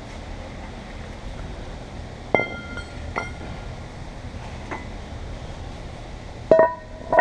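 Hard clinks with a brief ring as weights are set down on newly installed car roof glass to hold it into the adhesive: three lighter clinks, then two louder ringing clanks near the end.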